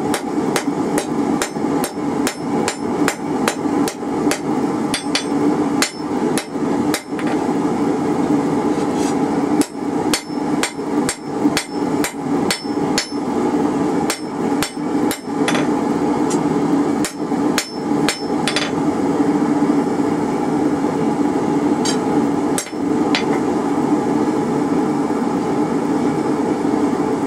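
Hand hammer striking hot half-inch rebar on an anvil face, about two to three blows a second, spreading out the flat pad at the end of a forged hold-fast. The blows thin out to a few scattered strikes over the last ten seconds, over a steady hum.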